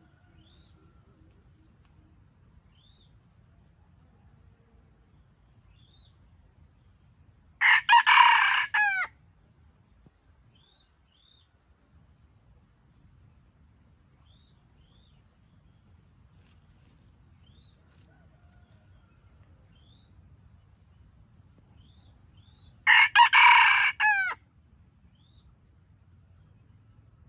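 Red junglefowl rooster crowing twice, about fifteen seconds apart, each crow short (about a second and a half) and broken into a few quick notes. Faint high chirps sound now and then between the crows.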